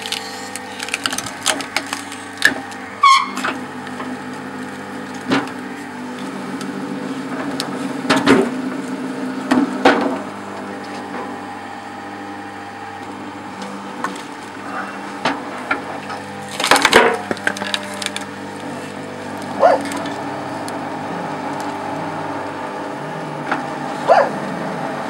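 A 220 V, 4 kW electric hydraulic log splitter running with a steady hum from its motor and pump, with repeated loud cracks and knocks as logs split on the wedge and the pieces drop onto the table.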